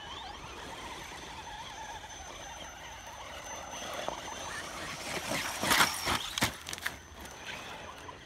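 Electric RC rock crawler's motor and drivetrain whining steadily as it crawls over rock. About two thirds of the way through comes a burst of sharp knocks and clatter, the loudest part.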